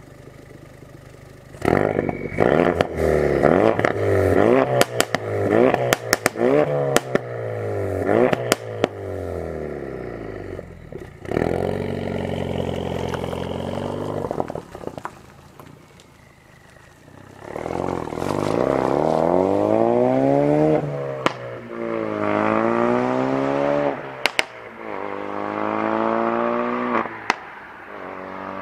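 Ford Focus RS Mk3's turbocharged 2.3-litre four-cylinder through a custom exhaust in track mode. It is revved sharply again and again, with loud cracks and pops from the exhaust between revs. The car then pulls away, accelerating through several gear changes with more pops on the shifts.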